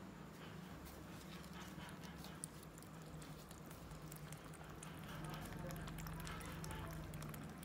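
Two kittens lapping milk from a steel plate: a run of quick, faint wet tongue clicks, with a low steady hum underneath.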